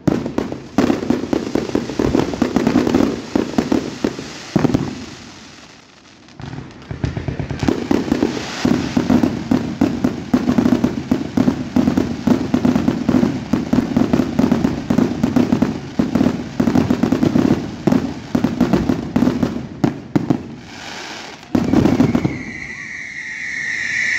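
Fireworks display: aerial shells going off in rapid, dense volleys of bangs and crackles, easing off briefly about a quarter of the way in before picking up again. Near the end the bangs stop and a steady high-pitched tone sets in.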